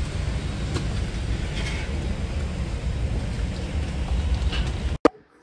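Steady low rumble of background noise, with a few light clicks and rustles as small boxed and bagged parts are handled on a counter. It cuts off abruptly about five seconds in, leaving near quiet.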